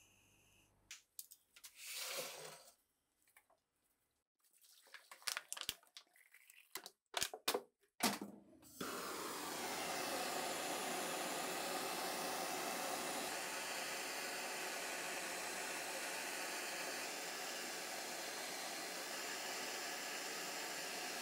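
Handheld butane torch: a few sharp clicks and short sounds, then about nine seconds in the flame starts suddenly and burns with a steady, even noise.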